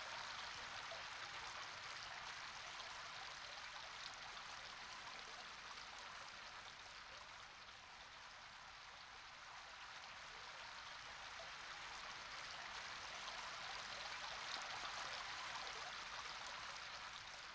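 Rain and muddy runoff water running over stones: a faint, steady hiss that dips about halfway through and swells again near the end.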